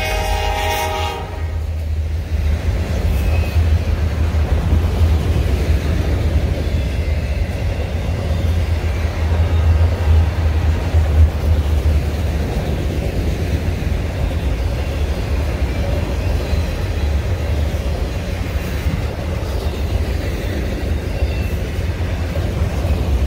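A freight locomotive's horn sounds a steady chord that cuts off about a second in. A long string of loaded autorack cars then rolls past, and their wheels make a steady low rumble on the rails.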